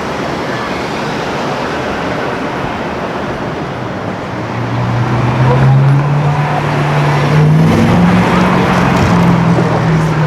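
Street traffic noise, then about four seconds in a car's engine note comes in loud and low, climbing in pitch as the car accelerates.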